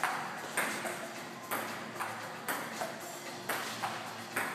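Table tennis rally: the ball clicking off the paddles and the table in a steady rhythm, about two hits a second.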